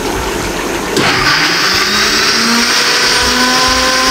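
Electric countertop blender grinding yogurt, fried onions, coconut powder and green chillies with a little water into a wet paste. The motor runs steadily, then gets louder about a second in, with a high whine and a hum that rises slightly in pitch.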